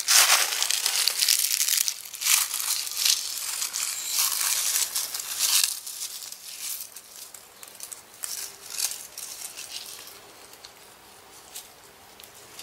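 Dry fallen leaves crackling and rustling under a Greek tortoise crawling through them, in dense bursts for about the first six seconds and then sparser and fainter.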